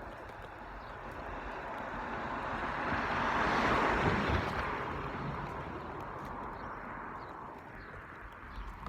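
A vehicle passing by, growing louder to a peak about four seconds in and then fading away.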